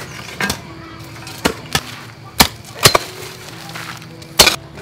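Garden hoes chopping into hard soil to dig up arrowroot: a series of about seven sharp strikes at uneven intervals, the loudest one near the end.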